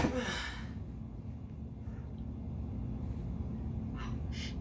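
Iron weight plates on a loading-pin handle clank as they are hoisted off the stall mat, and the metal rings out for under a second. A steady low hum follows, with two short, soft noises about four seconds in.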